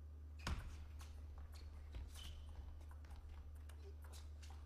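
Table tennis rally: the celluloid ball clicking off the rackets and the table, a short sharp knock every second or so, the first about half a second in the loudest, over a low steady hum.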